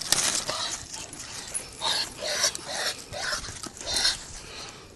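A Weimaraner panting hard in quick, breathy puffs, two or three a second, while it play-fights with a duck.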